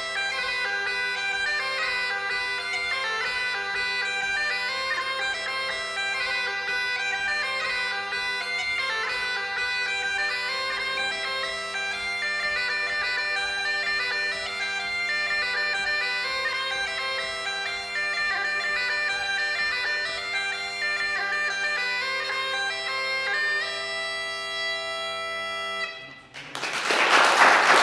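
Border bagpipes playing a tune on the chanter over steady drones, settling on a long held final note about 24 seconds in. The pipes stop about 26 seconds in and applause breaks out.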